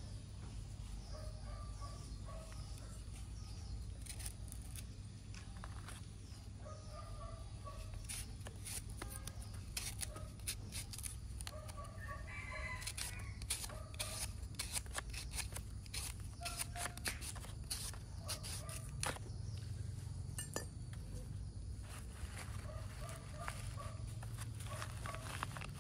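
Chickens clucking in short, repeated calls, mixed with scattered sharp clicks and taps over a steady low rumble.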